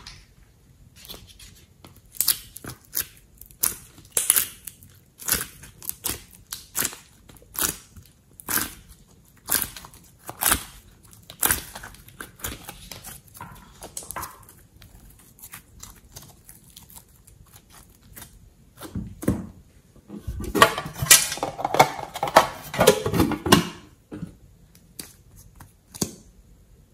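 Hands squeezing and kneading slime and clay, making wet pops and clicks about once a second, then a denser run of crackling squelches around twenty seconds in.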